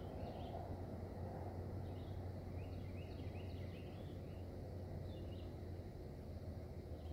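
Outdoor background: a bird chirping in short calls several times, over a steady low hum and faint noise.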